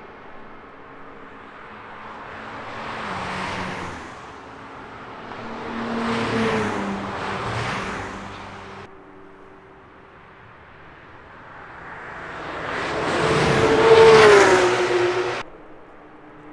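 Cars driving past one after another at speed on a race track, each engine note swelling and fading as it goes by. The last and loudest, about 14 s in, has an engine pitch that drops as it passes, then cuts off suddenly.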